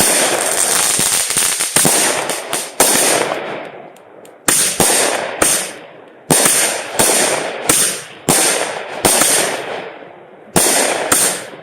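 Consumer fireworks going off in a rapid series, about a dozen sharp bangs roughly a second apart, each trailing off in a fading high hiss and crackle.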